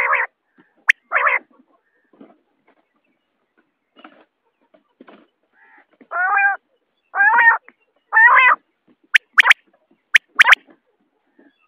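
Common quail calling: two short rough calls at the start, then three clear pitched calls about a second apart, followed by a few quick sharp high notes near the end.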